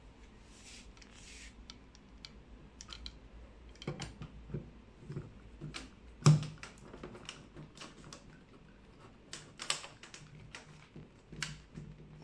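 Laser handle's cable connector being fitted into the back panel of a portable laser machine: a string of irregular plastic and metal clicks and knocks with some rustling, the loudest knock about six seconds in.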